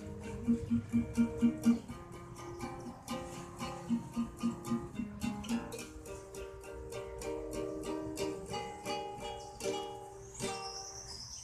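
Guitar being played, plucked notes with two runs of quick repeated notes, about six in a row each time. A brief high hissy sound comes near the end.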